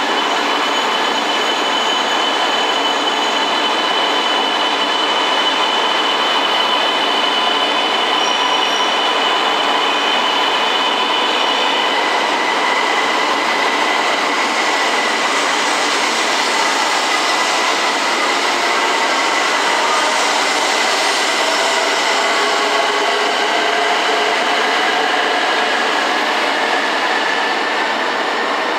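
E2 series Shinkansen trainset pulling out along the platform at low speed: steady running noise with a high whine. The whine steps down in pitch about twelve seconds in, and lower tones climb in pitch in the second half as the train gathers speed.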